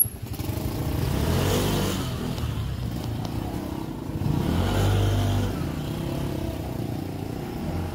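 Motor vehicles passing on a busy city street, their engines swelling and fading, loudest about a second and a half in and again around five seconds in.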